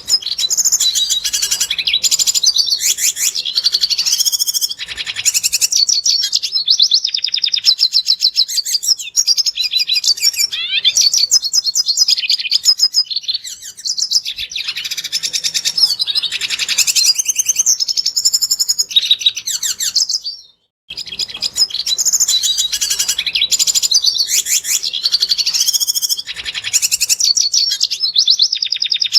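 Red siskin singing a fast, continuous twittering song, with a brief break about twenty seconds in before the song starts up again.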